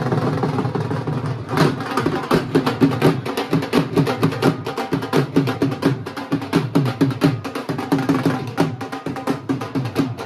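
Dhol drums beaten in a fast, dense rhythm: sharp stick clicks over deep strokes that dip in pitch.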